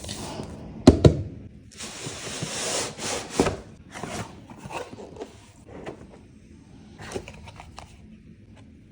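Cardboard product box being handled and opened: two sharp knocks about a second in, a sliding rub of box parts for over a second, another knock, then smaller rustles and clicks of packaging.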